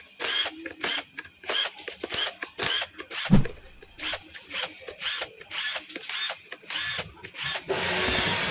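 Cordless drill-driver on the clutch pressure-plate bolts of a Bajaj Platina 100cc engine, its motor whirring up and down in short trigger pulses, about three a second, with one sharp knock partway through. Background music comes in near the end.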